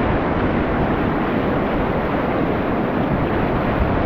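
Ocean surf breaking and washing up the beach, with wind buffeting the microphone: a loud, steady rush of noise.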